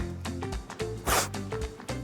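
Background music with held notes, and a short hissing swish about a second in.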